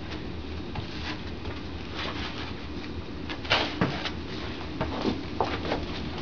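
Whippets moving and playing on a floor futon: scuffling, claw clicks and knocks, the loudest a sharp knock about three and a half seconds in, with soft low dog vocal sounds.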